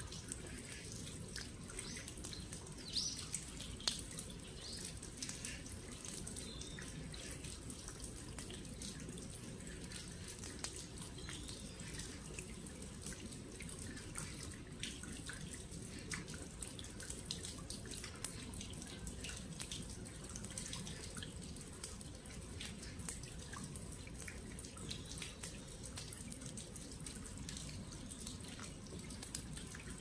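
Rain falling on a sandy gravel yard: scattered drops tick and drip over a steady low background, with a few louder drops about three to four seconds in.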